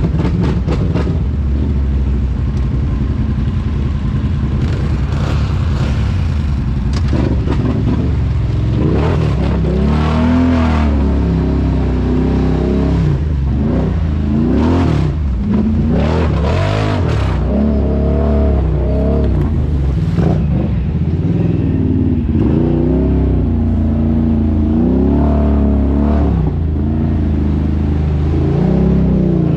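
ATV engine running steadily at first, then revving up and down over and over from about eight seconds in.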